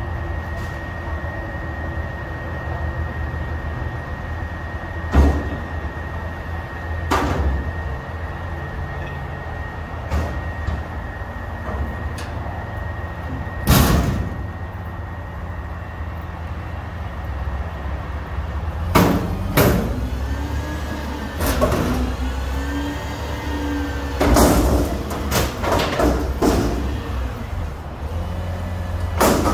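Front-loader garbage truck's diesel engine running steadily, with several loud metal bangs as the steel dumpster is pushed and knocked against the forks. In the last part, the engine and hydraulics rise and fall in pitch as the arms lift the dumpster over the cab, with a cluster of clanks.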